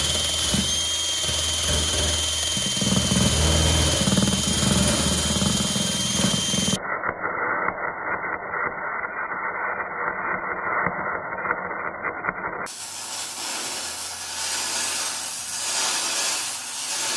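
A cordless drill spinning a wire-wheel brush against aluminum trailer welds, with a steady high whine. After an abrupt cut, about seven seconds in, comes the crackle of welding on the aluminum trailer, and after another cut a few seconds later it is heard from farther off.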